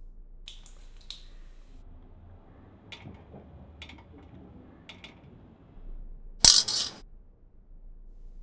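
A series of light clinks spread over the first five seconds, then a loud burst of noise about six and a half seconds in, lasting about half a second.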